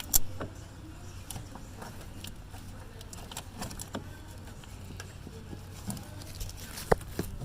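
Scattered metallic clicks and clinks of hand tools fitting and tightening a car battery terminal clamp, with a sharper click just after the start and another near the end, over a steady low hum.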